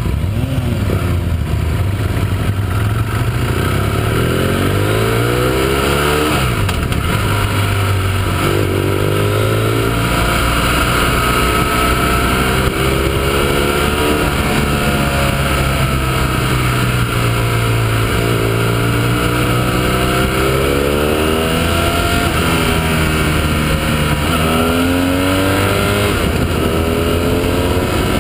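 Motorcycle engine pulling through the gears, its pitch rising and then dropping back at each gear change several times, over steady wind rush.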